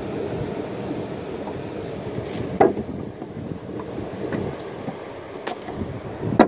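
Steady rushing wind and water noise, with two sharp knocks on the boat's wooden deck, one about two and a half seconds in and a louder one near the end.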